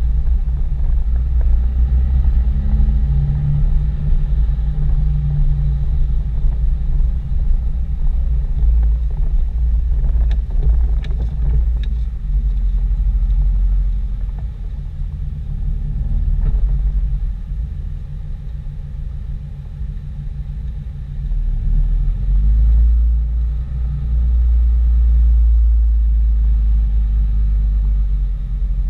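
5.9-litre Cummins inline-six turbodiesel in a 2007 Dodge Ram 2500 running under way, heard from inside the cab as a heavy low rumble that eases off in the middle and pulls harder again after about twenty seconds. A few light clicks come about ten to twelve seconds in.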